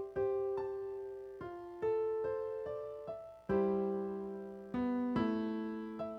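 Background music: a slow, gentle keyboard melody in a piano sound, single notes and chords struck about every half second and left to fade, with a fuller chord held longer about halfway through.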